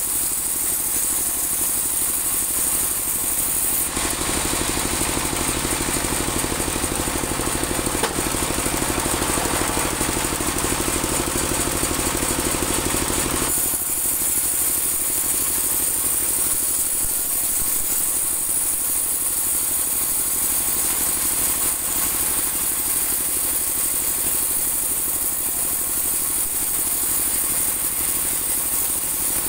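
Engine-driven bandsaw mill running steadily with a fast engine chug throughout. From about four seconds in until about thirteen seconds the blade cuts through a teak board, adding a louder sawing hiss over the engine, then the saw runs on without load.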